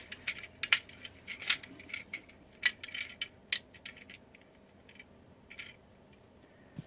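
Small plastic packaging pieces and parts of a boxed action figure being handled: a run of sharp, light clicks and rattles that thins out after about four seconds.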